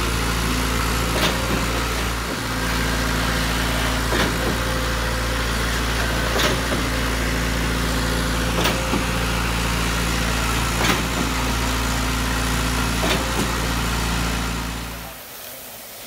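Trailer-mounted concrete line pump running steadily, with a sharp knock about every two seconds as it strokes and pushes concrete through the hose. The engine sound stops abruptly shortly before the end.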